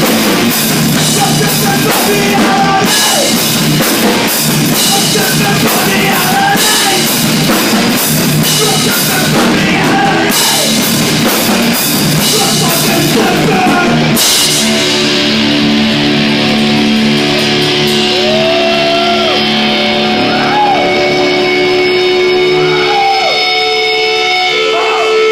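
Live hardcore punk band playing loud, with a Tama drum kit, distorted electric guitars and vocals. About 14 seconds in the drums stop and held, distorted guitar notes ring on with a few sliding tones as the song ends.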